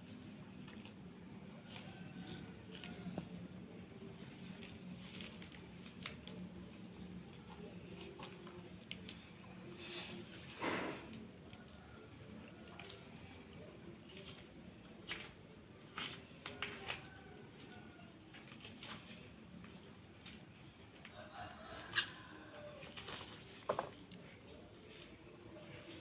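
Insects chirping steadily and faintly in a high, fine pulse. A few short sharp clicks and rustles come from hands working a carcass on a plastic tarp, the loudest about ten seconds in and near the end.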